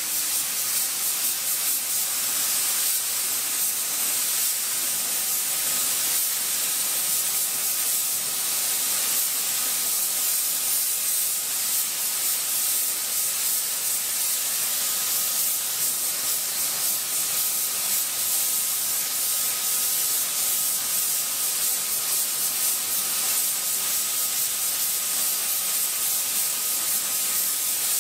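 Compressed-air gravity-feed spray gun hissing steadily as it sprays clear coat at about 25 psi, with faint steady tones underneath.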